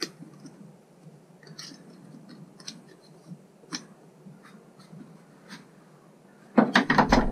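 Handling noise: faint scattered clicks about once a second, then near the end a loud clatter of rapid knocks and rattles.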